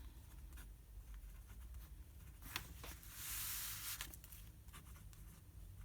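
Faint scratching of a fountain pen's F nib writing on print paper: light ticks, and one longer scratchy stroke of about a second a little past halfway.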